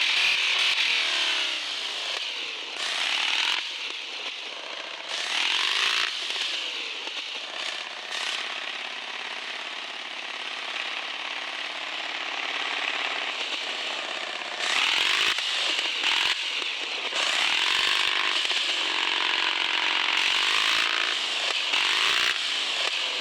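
Radio-controlled 4x4 truck's small electric motor and geared drivetrain whining, rising and falling in pitch as the throttle is worked, with the loudest surges about 3 seconds in, near 6 seconds and from about 15 seconds on.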